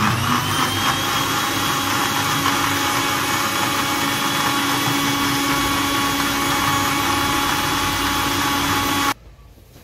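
Electric countertop blender running with a jar of milk, oats and almonds: the motor spins up with a brief rising whine, runs steadily and loud, then cuts off suddenly about nine seconds in.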